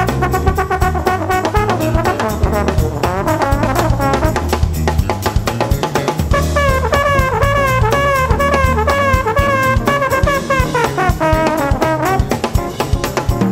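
Live jazz-funk band: a trombone leads with a quick bending line, then holds a long wavering note from about halfway through, over a busy drum kit groove and electric bass.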